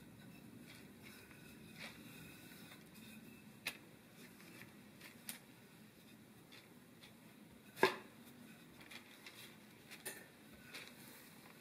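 Wooden rolling pin rolling out biscuit dough on floured parchment paper: faint rolling and rustling with a few scattered knocks and clicks, the loudest about eight seconds in.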